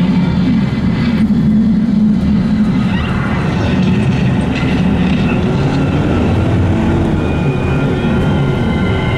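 Steady low rumble of a moving vehicle heard from inside its cabin, its engine and tyres on a rain-soaked road, with an even hiss of heavy rain and splashing traffic over it.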